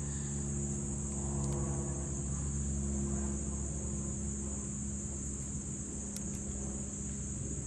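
A steady, high-pitched insect chorus of crickets drones throughout. Under it runs a low engine hum from vehicle traffic, which swells about two to three seconds in and then fades.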